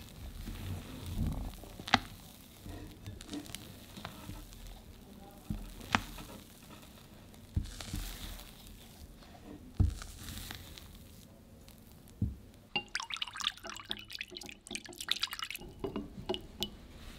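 Spatula folding thick sponge-cake batter in a glass bowl: soft wet squelching and scraping, with a few sharp knocks a few seconds apart. Near the end a whisk clatters quickly against a small glass bowl as milk and oil are whisked together.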